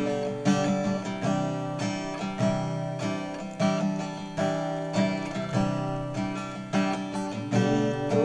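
Background music: acoustic guitar strumming with a steady beat, about two strums a second.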